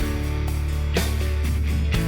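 Background rock music with electric guitar, a steady bass line and a regular beat.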